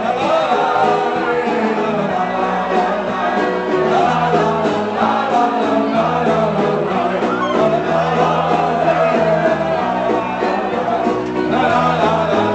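Live band playing a song with a singer, and a crowd shouting along.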